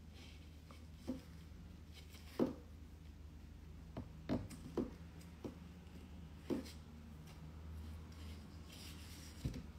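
Quiet room with a steady low hum and scattered soft clicks and rubs close to the phone's microphone, about eight in all, the kind of small handling or mouth noises made while eating.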